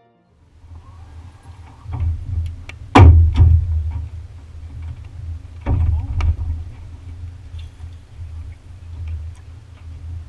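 Wind rumbling on the microphone in an open metal boat, broken by sharp knocks against the boat. A loud pair comes about three seconds in and a second pair a few seconds later, with light ticks after.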